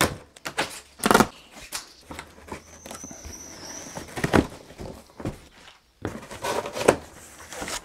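Knife slicing through the packing tape on a large cardboard box, then the cardboard flaps being pulled open: a few sharp rips about a second in, past four seconds and near the end, with quieter scraping between.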